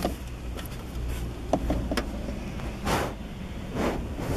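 Plastic stereo wiring-harness connectors and loose wires being handled and pushed into a car's radio slot: scattered clicks and rustles, the loudest about three seconds in, over a low steady hum.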